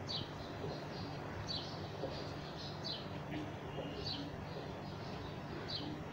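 A bird chirping repeatedly: about five short high chirps, spaced a second or so apart, over a low steady hum.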